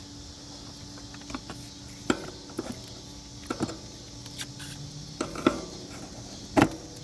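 Aged, brittle plastic covering over a blower motor resistor being broken away by hand: irregular snaps and small clattering of falling pieces, about nine in all, the loudest near the end. The covering is fragile and crumbling with age. A faint steady hum runs underneath.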